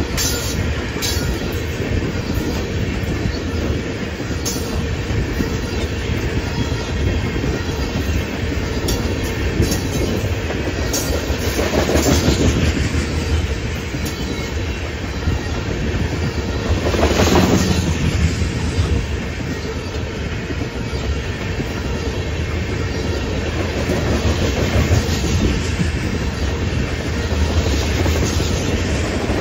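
Freight train rolling past, its cars clattering over the rails with a steady low rumble. There are scattered clicks, and two louder surges about twelve and seventeen seconds in.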